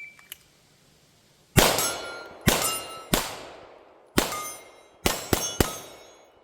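Short electronic shot-timer beep at the start, then seven pistol shots, each followed by the ringing of a 12-inch steel target plate being hit. The shots come in an uneven pace, with the last three close together.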